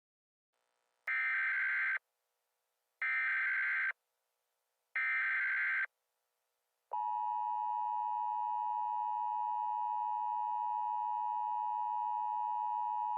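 Emergency Alert System tones: three short, harsh data bursts of the SAME header, each about a second long and two seconds apart, then a long steady attention tone starting about seven seconds in.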